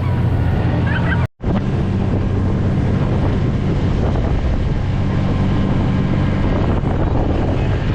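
A boat's outboard motor running steadily under way, with wind buffeting the microphone. The sound cuts out for a moment about a second in, then carries on.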